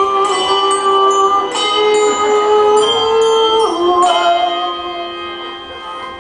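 Handbells played as live music: a melody of struck notes, each left ringing and overlapping the next. The ringing fades somewhat in the last couple of seconds.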